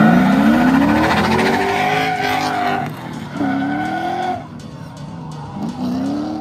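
Two drift cars, a Nissan 240SX and a Ford Mustang, launching together: engines revving up as they accelerate and tires squealing, then fading as they pull away down the track.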